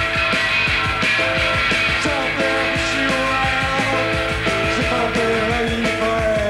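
Rock band playing live without vocals: electric guitars and bass over a steady drum beat.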